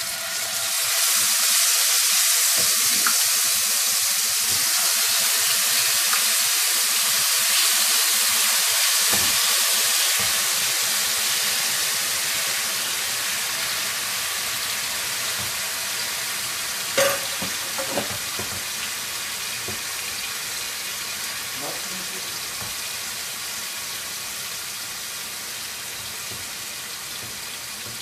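Marinated chicken pieces sizzling in hot oil in a frying pan, loudest as they go in and slowly dying down. A single sharp clink of a utensil on the pan or bowl about two-thirds of the way through.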